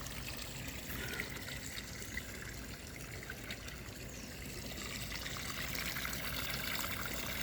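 Hot tub water steadily pouring and trickling into the tub.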